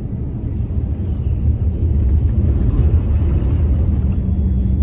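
Moving bus heard from inside the cabin: a steady low rumble of engine and road noise.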